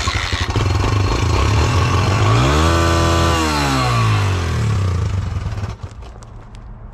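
Suzuki DR-Z125 dirt bike's small single-cylinder four-stroke engine running cold, just started. It is revved up once about two and a half seconds in, held briefly and let back down, then drops quieter near the end.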